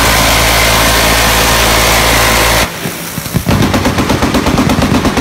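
Electric rotary machine gun (minigun) firing at about 4000 rounds a minute, the shots run together into one continuous sound that stops abruptly about two and a half seconds in. After a short pause, rapid fire resumes as distinct shots, roughly ten a second.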